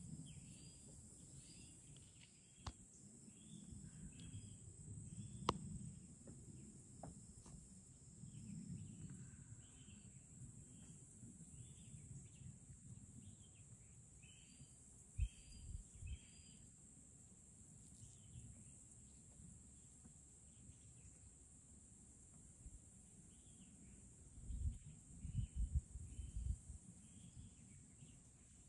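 Faint outdoor ambience: a steady high insect drone with short chirps repeating every second or so. Low rumbling and a few dull thumps come near the end.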